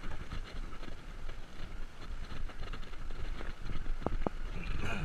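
Mountain bike rolling over a cobblestone street: a steady, jittery rumble and rattle from the tyres and frame on the uneven stones, with wind on the microphone. Two short sharp knocks about four seconds in.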